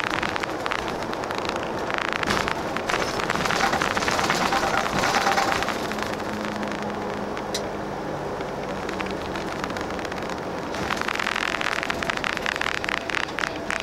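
Airport limousine bus on the move, heard from inside the cabin: engine drone and road noise with a constant light rattling and clicking of cabin fittings.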